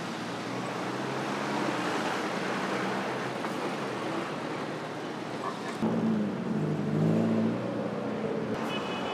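City road traffic with buses and cars: a steady rumble of engines and tyres, with one engine passing louder about six seconds in.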